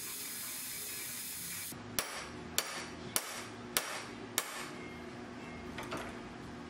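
A rotary tool grinding steadily, stopping about a second and a half in. Then a small hammer taps five times at an even pace, about every 0.6 s, and once more lightly, driving a brass guard onto a knife's steel tang.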